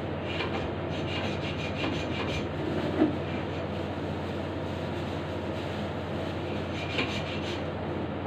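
Hand saw rasping back and forth through a hard block in quick strokes, in a run about a second in and another shorter run near the end, with a single knock in between. A steady low hum runs underneath.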